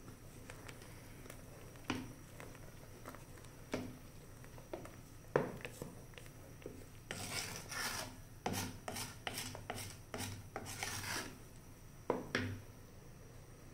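Wooden spoon stirring apricots in sugar syrup in a stainless steel pot, scraping and knocking against the pot walls. A few single knocks come first, then a quick run of scraping strokes in the middle, and one more knock near the end.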